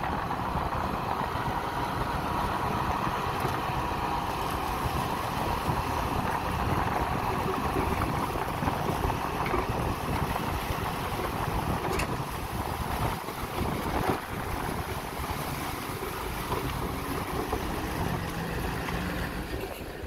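Dump truck's diesel engine running steadily while its bed tips and the load of soil and rock slides off, with wind buffeting the microphone.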